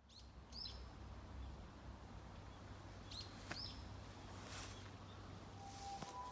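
Wild birds chirping in woodland: short, high, sweeping calls in pairs, about a second in and again after about three seconds, over a faint low rumble. A couple of steady tones come in near the end.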